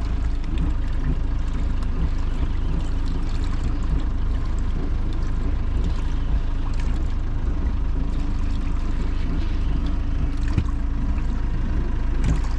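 Steady low rumble on a small fishing boat at sea, with water sloshing against the hull and a few light knocks.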